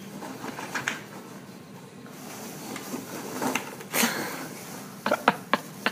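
Foam packing peanuts rustling and shifting as a small dog burrows through a box full of them. There is a louder rustling burst about four seconds in and a few sharp short sounds near the end.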